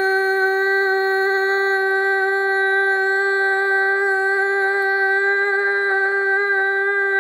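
A boy's voice holding the last syllable of "spinner" as one long, steady, high-pitched note, sustained for as long as his breath lasts.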